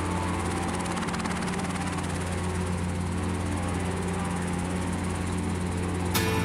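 Light helicopter's engine and rotor running steadily, heard from inside the cockpit as a constant low drone with hiss. Music with a regular beat starts near the end.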